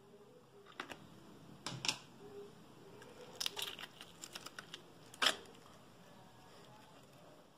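Small plastic slime tub being opened and handled: clicks and crackles of its snap-on lid and thin plastic walls, with a quick run of clicks in the middle and one sharp, loudest click a little after five seconds in.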